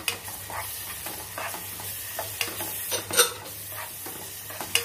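Onions and tomatoes sizzling steadily as they fry in ghee and oil in a nonstick pan, with a spatula stirring and scraping through them in repeated short strokes; the loudest scrape comes a little past three seconds in.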